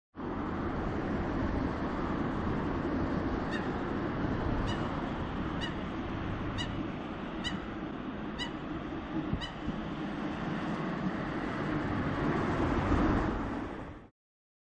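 Steady rumbling noise with seven short, high chirps about a second apart in the middle. It cuts off abruptly just before the end.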